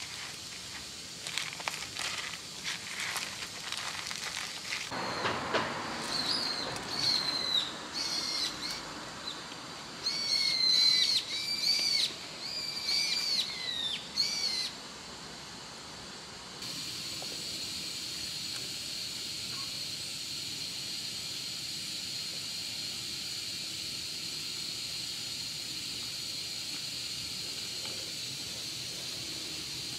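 A spoon clicking and scraping in a plastic food tray as cat food is mixed, followed by a run of short, repeated high bird chirps that fall in pitch. After that, a steady hiss.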